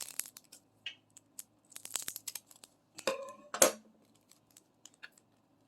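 Small plastic bags of diamond-painting drills being handled and torn open: short tearing rasps and crinkles among light clicks, the loudest pair about three seconds in.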